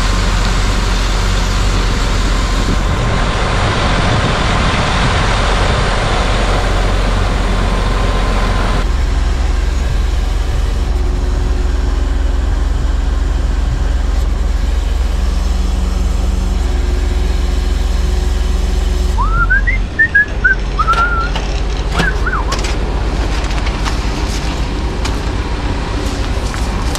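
Truck diesel engine running steadily. Its pitch steps up about a third of the way in and shifts again about two-thirds through. At that second change a few short rising squeaks sound, followed by scattered clicks.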